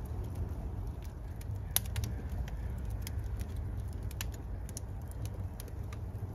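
Wood fire burning, with scattered sharp crackles and pops over a steady low rumble; the loudest snap comes about two seconds in.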